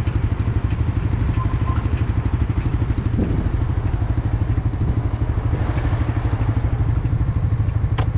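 Suzuki GSX-R sport motorcycle engine idling steadily while the bike stands still, an even low pulse with no revving.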